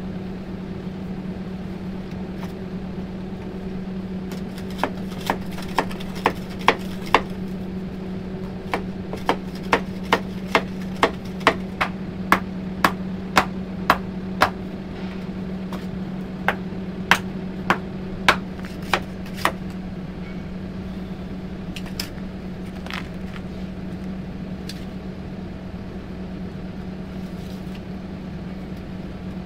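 A small portable engine-driven generator hums steadily throughout. From about five seconds in until about twenty seconds in, a run of sharp knocks sounds, about two a second in short groups, from work on the buried water line in the pit.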